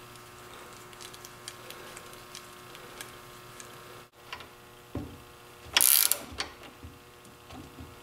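Light metal clicks and scraping as an AN hose fitting is handled, threaded and turned with wrenches, with a brief loud hiss about six seconds in.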